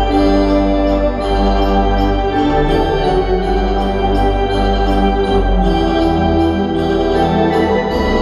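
Kimball pipe organ playing full sustained chords over a deep held bass note, the chords changing every second or so.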